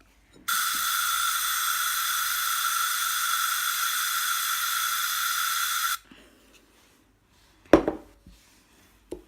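Air Wick air freshener aerosol can spraying in one long steady hiss of about five seconds, stopping abruptly; the spray is the activator going into the glue mixture to set it into slime. Then a sharp knock, and a lighter one near the end.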